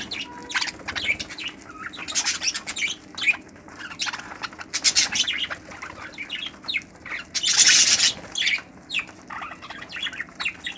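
A flock of budgerigars chattering with many short chirps and warbles, broken by bursts of wing flapping, the loudest burst about three-quarters of the way through.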